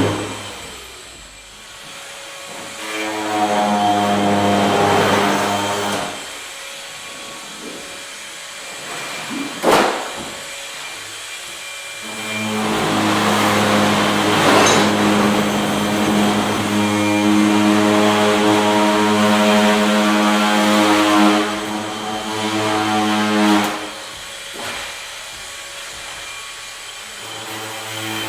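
Electric pressure washer: its motor and pump hum starts and stops several times, with a spray hiss while it runs. There is a long run in the middle of about nine seconds, and a sharp click about ten seconds in.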